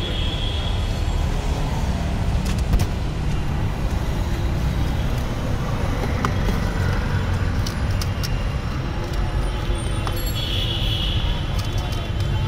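Steady rumble of passing road traffic, with a few light clicks.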